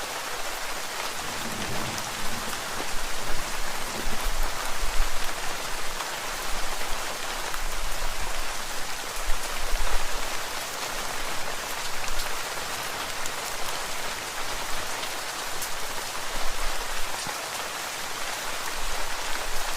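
Steady rain falling: a dense, even hiss with scattered drop ticks, its loudness swelling and easing every few seconds.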